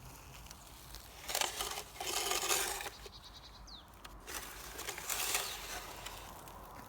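Toy chainsaw running in two bursts of a couple of seconds each, a rough buzzing rattle, with a quieter gap between them.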